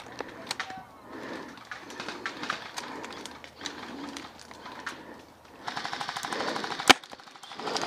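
Airsoft gunfire: scattered single shots, then a rapid automatic burst lasting about a second near the end, followed at once by one loud, sharp shot close by.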